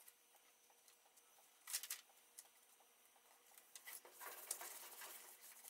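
Near silence, with faint rustling of a paper template being laid and pressed onto a wooden board: a brief rustle about two seconds in and a longer stretch of soft rustling near the end.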